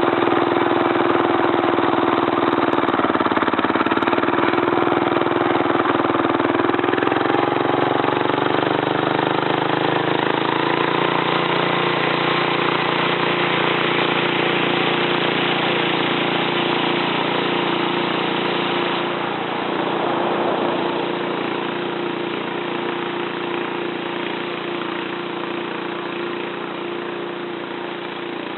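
Modified Kohler K301 single-cylinder engine on a Wheel Horse garden tractor, with milled head, hot camshaft and custom exhaust, running steadily. Its note shifts slightly about ten seconds in, and it gradually grows quieter toward the end.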